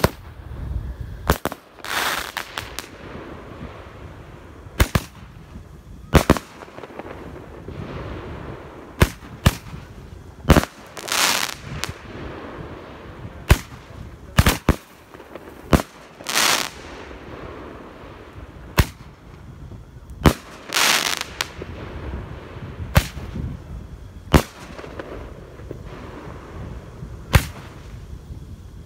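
Roman candles firing: irregular sharp pops a second or a few seconds apart, with about four longer hissing bursts among them.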